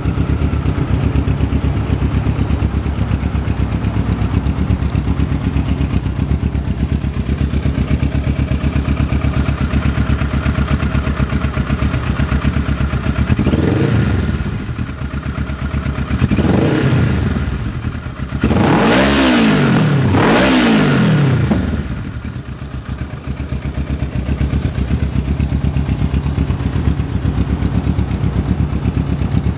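2008 Kawasaki EX650's parallel-twin engine idling steadily, revved four times about halfway through, the last two revs back to back, then dropping back to idle.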